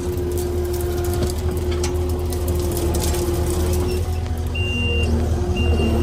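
Tracked skid steer's diesel engine running steadily with a constant whine over it. About four and a half seconds in, a backup alarm starts beeping about once a second as the machine reverses.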